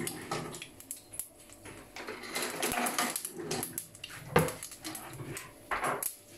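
Mustard seeds popping and crackling in hot coconut oil: a scatter of irregular sharp pops, with a couple of louder ones past the middle.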